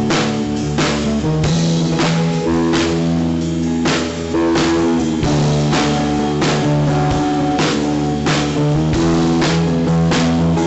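Rock song with guitar and drum kit playing a steady beat.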